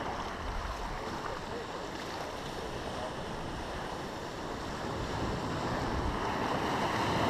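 Sea waves surging through rocks into a rocky tidal pool, a steady rush of water that swells louder over the last couple of seconds.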